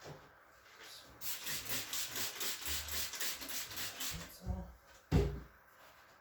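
Rhythmic rubbing or rasping strokes, about four to five a second, for about three seconds, then a single loud thump.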